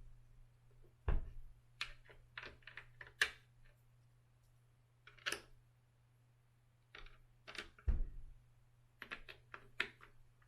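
Small bolts and tools clicking and tapping while bolts are fitted into a Onewheel XR's front bumper, with two heavier knocks about a second in and about eight seconds in.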